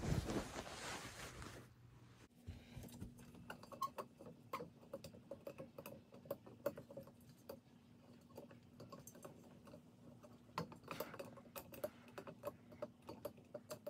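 Glass light globe on a ceiling fan being handled and its retaining screws loosened: faint, irregular small clicks, taps and scrapes of glass and metal.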